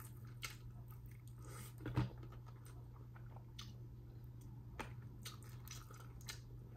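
Faint close-up chewing and eating mouth sounds: scattered soft clicks and smacks, the strongest about two seconds in, over a steady low hum.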